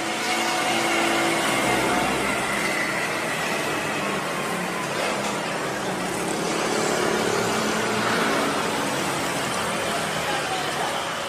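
Street traffic: a steady noisy hum of passing motorbikes and cars with their engines running.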